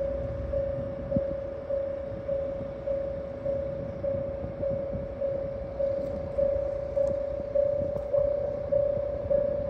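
Railway level-crossing alarm bell ringing at an even pace, a little under two strokes a second on a single clear tone, each stroke fading before the next. Underneath is the low rumble of the idling H100 diesel-electric railcar.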